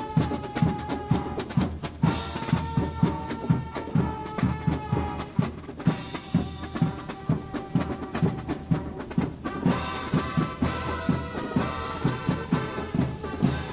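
Drum and bugle corps playing: bugles sounding held notes over a steady beat of snare and bass drums.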